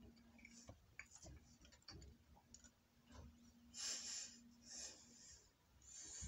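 Quiet eating sounds: faint clicks from wooden chopsticks and chewing, with short breathy puffs about four and five seconds in and again near the end, over a faint steady hum.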